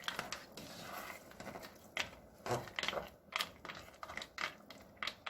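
Irregular clicks and scrapes of a utensil against a cooking pot while rice cooking in broth is tended.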